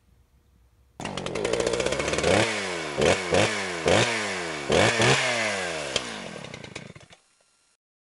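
Two-stroke chainsaw engine starting abruptly about a second in and revved in about six quick blips, its pitch falling after each one, then winding down and stopping near the end.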